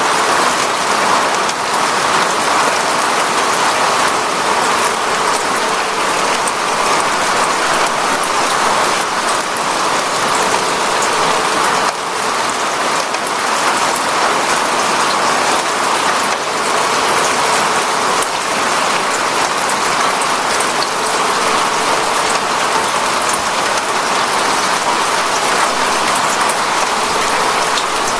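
Steady rain falling: a dense, even hiss with scattered sharper drop ticks.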